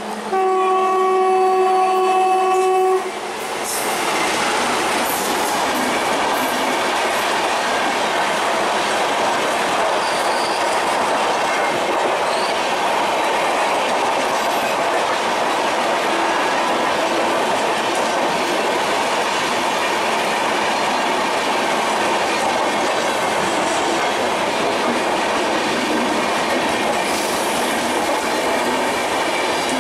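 An Indian Railways train's horn sounds one steady blast for nearly three seconds, then the train runs past with a steady loud noise of wheels on the rails.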